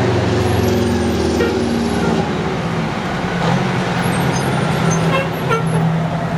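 Fire truck (ladder truck) engine running as it drives slowly past close by, its pitch falling in the first two seconds and then holding a low steady drone. A few brief high toots sound about a second and a half in and again around five seconds in.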